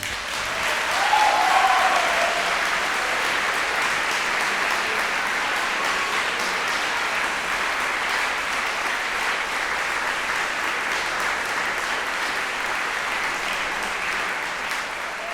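Crowd applause with a brief cheer about a second in, starting right as the song ends and holding steady.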